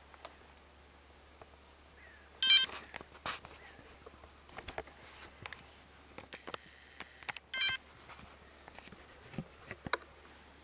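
Two short electronic beeps about five seconds apart, over scattered light clicks and knocks.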